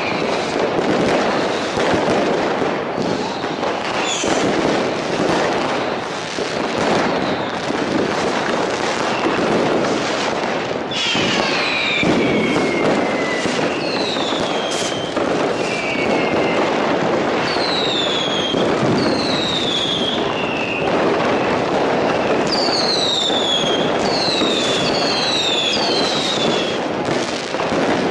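Fireworks going off in a dense, unbroken barrage of bangs and crackles. From about the middle on, short whistles that fall in pitch cut through, several in quick succession near the end.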